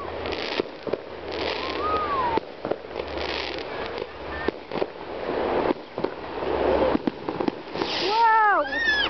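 New Year's fireworks going off all around: sharp cracks and pops throughout, with several short hissing bursts, the loudest about eight seconds in.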